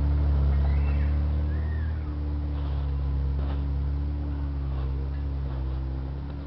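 Off-road SUV engine running steadily at low revs, a deep even hum that slowly grows fainter, with a couple of brief high chirps about a second in.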